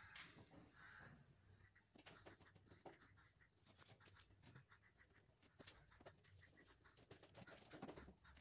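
Near silence: faint background tone with scattered small ticks.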